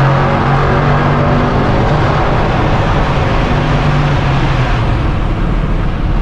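Lamborghini Urus twin-turbo V8 with a straight-piped Capristo exhaust, running at a steady, near-constant pitch while driving.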